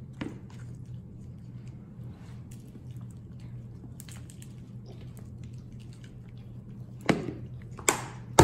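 Grated parmesan cheese shaker being shaken over a pizza slice: faint rattling taps and rustles, followed by two sharper knocks near the end.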